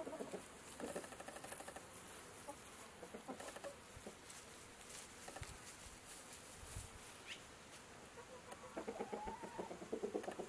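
Chickens clucking faintly while foraging, with a louder run of rapid clucks near the end.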